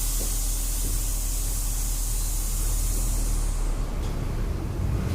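Loud hiss of compressed air being released from the air brake system of a Volkswagen Volksbus 17.230 EOD, fading out about three and a half seconds in, over the bus's diesel engine idling.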